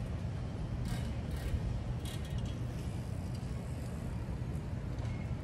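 City street ambience: a steady low rumble of traffic, with a few faint clicks.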